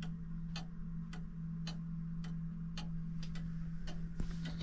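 Pendulum fusee clock ticking steadily, about two ticks a second, freshly repaired and running well. A steady low hum runs underneath.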